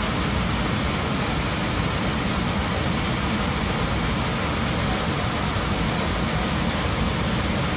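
Loud, steady rushing roar of air and jet engine noise inside the cabin of an Airbus A321 in flight after an explosion blew a hole in its fuselage and depressurised the cabin.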